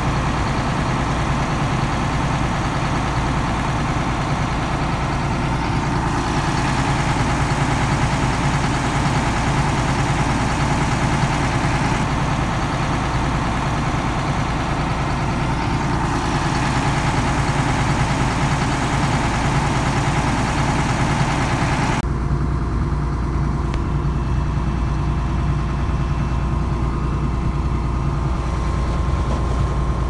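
Hyundai wheeled mini excavator's diesel engine running steadily while the machine works, with a higher working sound that swells and eases. About two-thirds through, that higher sound cuts away abruptly, leaving a lower engine idle.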